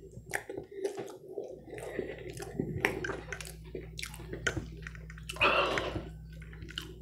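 A person chewing food with wet mouth sounds, with short clicks of a metal fork against a plate. One louder noisy burst comes about five and a half seconds in.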